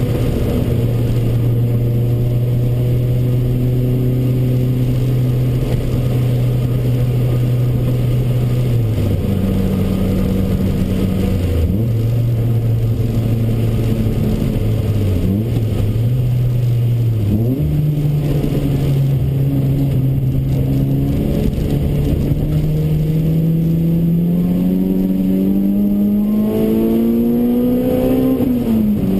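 Toyota AE93 Corolla's 4A-GE 20-valve four-cylinder engine heard from inside the cabin under track driving. Its revs hold steady at first, then dip and change a few times through the corners. After that comes a long, steady climb in revs, which falls off sharply near the end at a gear change.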